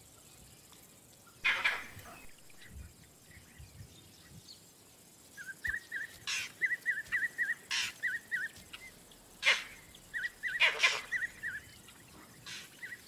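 Vervet monkey alarm calls: about six short, harsh barks spread out, the first about a second and a half in, warning of a predator close by. Between them come two runs of short high notes, about four a second.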